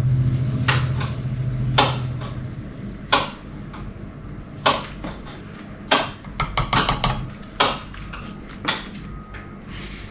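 Kitchen utensils clinking against a pot and dishes as a tablespoon of salt is added to the boiled potatoes: about a dozen sharp clinks spaced unevenly, with a quick run of them past the middle. A low hum fades out in the first couple of seconds.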